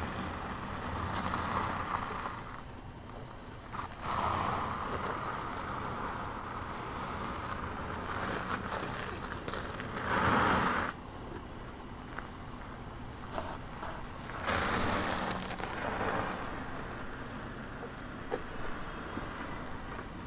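Range Rover L405 crawling down a rock and dirt slope: tyres crunching and scraping over stone and grit in several swells, the loudest about halfway through, with the engine running at low revs underneath.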